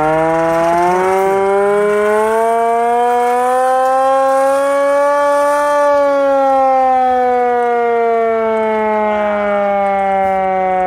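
Carter Secomak hand-cranked air raid siren sounding a loud, steady tone with many overtones. Its pitch rises for about the first five seconds as it is cranked up, then slowly falls as it winds down.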